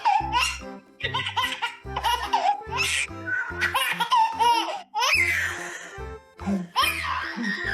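A baby laughing and squealing in repeated bursts over background music with a steady beat.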